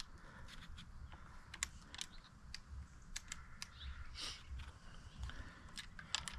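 Scattered light clicks and taps of hands working a bicycle mirror's handlebar clamp mount as it is fitted and tightened.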